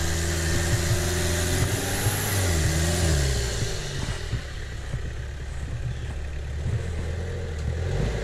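Off-road 4x4 truck engine running at low revs, with a brief rise and fall in revs about two and a half seconds in. A hiss fades out about four seconds in.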